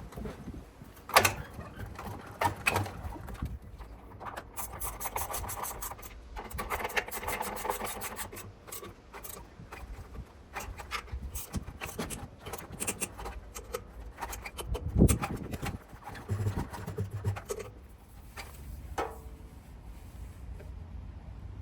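Scattered knocks, clicks and scraping of washing-machine parts being handled and fitted during reassembly, with a longer scraping stretch early on and a louder knock about fifteen seconds in.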